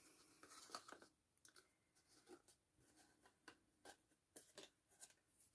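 Near silence with faint, scattered small clicks and rustles of cardstock being handled and pressed in the hands.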